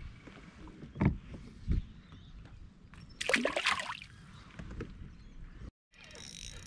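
Two dull knocks on the plastic kayak hull, then a splash lasting under a second as a small hooked tailor is brought to the surface beside the kayak.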